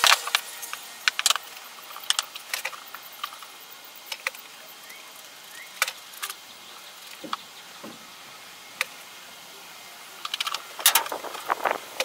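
One-handed bar clamp and a small glued-up cedar box being handled on a bench: scattered light clicks and knocks, then a quick run of clicks near the end as the clamp is set on the box.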